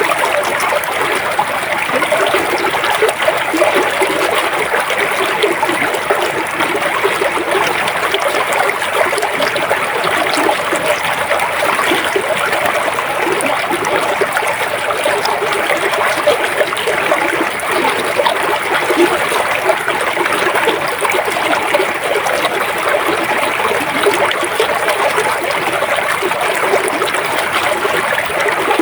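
Flowing river water, a steady, unbroken rushing and trickling over its course.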